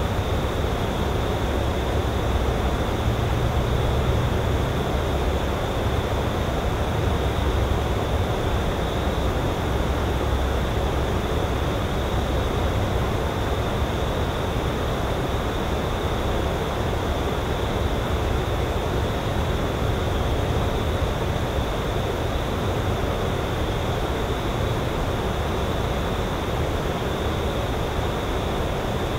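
Outdoor lakeside ambience: a steady, even rushing noise with a low rumble underneath and a faint high hiss.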